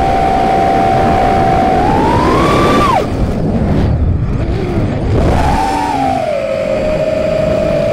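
Armattan Rooster FPV quadcopter's T-motor F40 II 2400 kv brushless motors with DAL 5060 props, heard from the onboard camera, whining steadily. The pitch climbs about two seconds in as the throttle goes up, then falls away sharply about three seconds in as the throttle is chopped, leaving a couple of seconds of rough rushing air noise. The whine then rises again and settles at a lower pitch.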